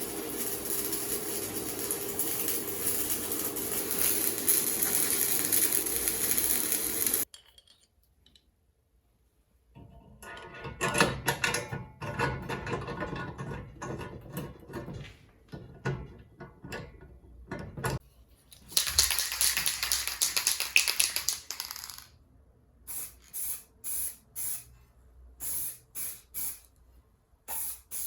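Hissing spray: one long burst of about seven seconds, an irregular stretch of handling noise, a second burst of about three seconds, then a run of short spurts about half a second apart near the end.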